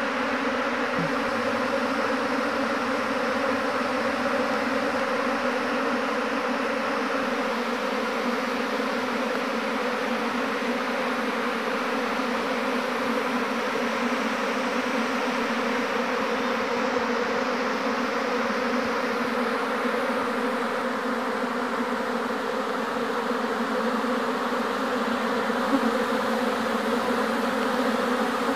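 A swarm of honeybees buzzing in flight, a dense, steady hum, as the swarm moves into a new wooden box hive.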